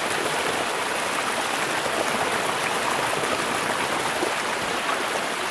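Shallow water running steadily over the ground, a continuous rushing and splashing.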